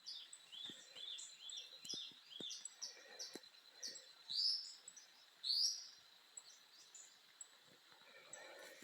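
Morning birdsong: a bird repeating short high chirps about twice a second, then two louder, longer sweeping calls around the middle, with quieter calls and faint clicks after.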